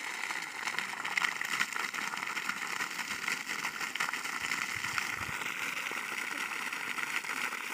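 Water gushing steadily from the end of a flexible pipe fed by a solar-powered borewell pump and splashing onto wet dirt ground.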